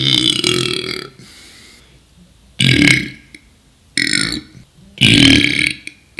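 A man burping loudly four times: a long belch lasting about the first second, then three shorter ones in quick succession from about two and a half seconds in.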